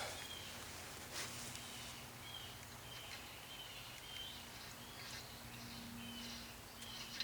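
Faint outdoor ambience: a bird chirping in short high notes that repeat every half second to a second, over a low steady hum, with a soft click about a second in.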